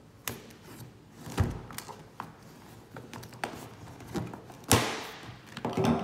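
A folding knife slitting the seal sticker on a cardboard box, with a few knocks and thumps as the box is handled. The loudest is a sharp bump about four and a half seconds in, followed by a short scraping rustle as the cardboard lid is pulled open.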